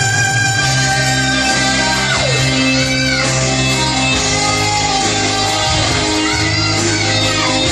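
Rock ballad music with guitar and band backing. A long high held note slides down steeply about two seconds in, followed by shorter wavering high notes.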